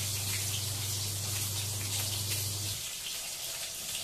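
Fish deep-frying in hot mustard oil in a kadhai: a steady sizzle with fine crackling spatters. A low steady hum underneath cuts off suddenly near the end.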